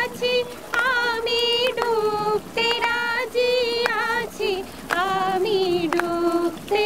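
A woman singing a high melody unaccompanied, in held notes that waver slightly, broken by short pauses.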